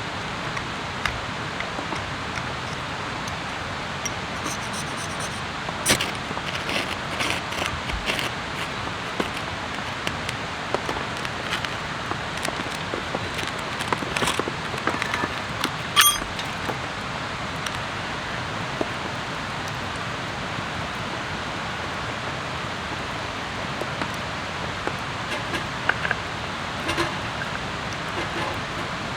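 Steady rain falling, an even hiss throughout, with scattered clicks and knocks from handling gear, the sharpest about six seconds in and again near the middle.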